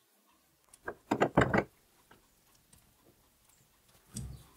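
Steel tool holder being fitted onto a lathe's quick-change tool post dovetail: a quick cluster of metal clicks and knocks about a second in, then another short knock near the end.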